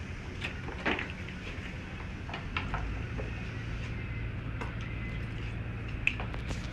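Scattered metallic clinks and knocks of hand tools against metal engine parts, over a steady low hum.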